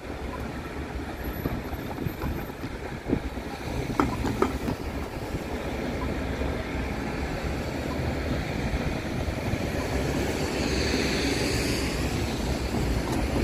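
Road traffic crossing a level crossing with tram and railway lines: a steady low rumble, two sharp knocks about four seconds in as a car's wheels go over the rails, and tyre noise swelling near the end as a car passes close.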